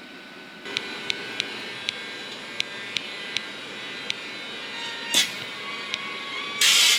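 A train approaching on the tracks: rushing noise rises with a string of sharp, irregular ticks from the rails, a louder clack about five seconds in, and a loud high rushing near the end as it reaches the microphone.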